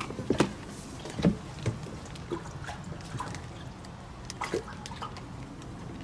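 Water splashing and dripping in an aquarium as a mink swims and dives in it: a few irregular splashes, the loudest in the first second and a half and one more about four and a half seconds in, over a steady low hum.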